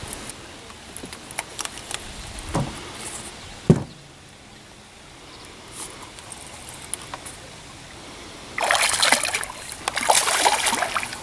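A hooked catfish thrashing and splashing at the water's surface beside the boat, in two loud bursts near the end. Earlier there are a few sharp knocks, the loudest about four seconds in.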